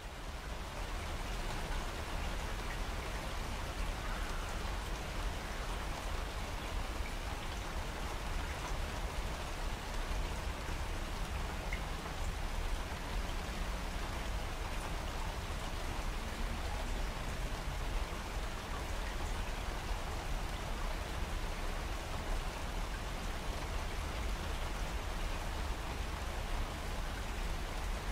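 Steady rain falling, an even hiss with a low rumble beneath it.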